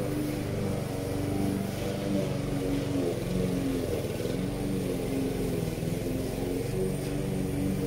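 Petrol walk-behind rotary lawn mower engine running steadily as it cuts grass, its pitch wavering slightly with the load.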